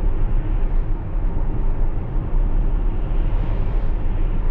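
Steady tyre and road noise heard inside the cabin of an electric Tesla Model X cruising at about 40 mph on a wet road, with no engine sound. A slight swell of hiss comes near the end as an oncoming van passes.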